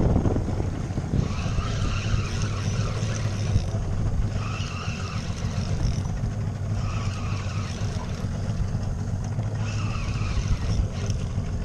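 Outboard motor running steadily at trolling speed, with wind and water rush. Short higher-pitched whirs come every two to three seconds.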